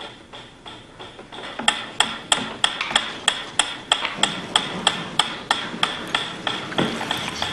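Wind-up pyramid metronome ticking steadily at about three ticks a second, the ticks faint for the first second and a half and clearer after that.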